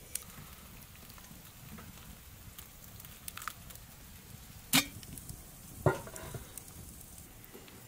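Wood fire crackling softly with small scattered ticks, then two sharp clinks of glass on metal about five and six seconds in, the second as a tea glass is set down on a metal pot lid.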